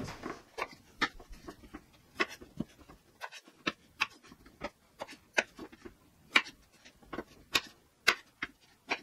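Kitchen knife chopping peeled potatoes on a cutting board: a string of sharp knocks as the blade goes through each piece and hits the board, irregular, about two a second.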